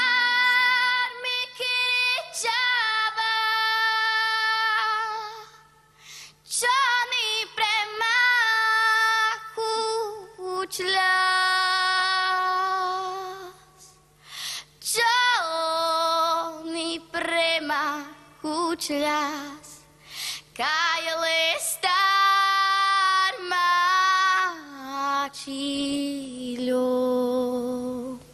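A young girl singing a Romani song solo without accompaniment, a slow melody in long held notes with short breaths between phrases.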